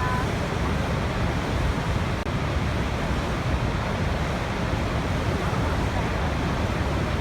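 Waterfall: a steady, unbroken rush of falling water, deepest in the low end.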